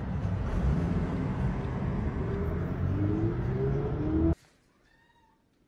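Low steady rumble of a car heard from inside the cabin with a window rolled down, with two short rising whines about three and four seconds in. It cuts off abruptly after about four seconds, leaving near silence.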